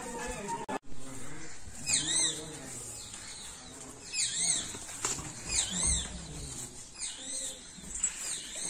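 Bird calls: a short, high chirp that rises and falls, repeated about five times a little over a second apart, over fainter low calls.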